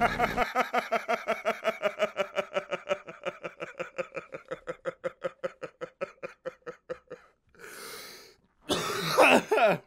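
A man laughing in a long run of rapid, evenly spaced 'ha' pulses, about five or six a second, trailing off over about seven seconds. Near the end he takes a breath and gives a short, loud vocal sound.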